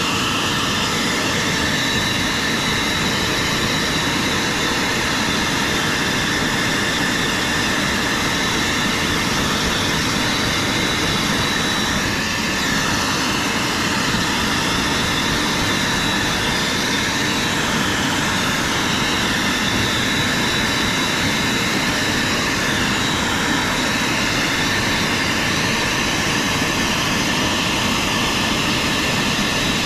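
Dog-grooming blower dryer running steadily: a loud, even rush of air with a thin, high whine from its motor.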